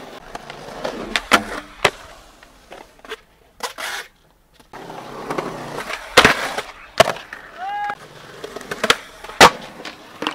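Skateboard wheels rolling on concrete, broken by sharp clacks of the board popping and landing several times. There is a brief drop to near quiet in the middle, and a short voice call near eight seconds.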